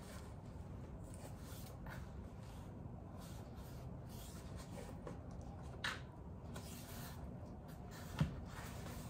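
Quiet handling of packaging: soft rubbing and rustling, with two short knocks about six and eight seconds in.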